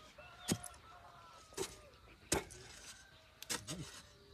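A hand hoe chopping into loose, dry red clay soil: about five sharp strikes of the iron blade into the earth, roughly one a second.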